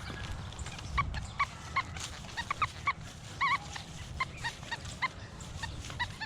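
XP Deus metal detector with a high-frequency coil in pitch-tone mode giving a dozen or more short beeps, irregularly spaced and bending up and down in pitch, as the coil sweeps over many targets in trashy ground.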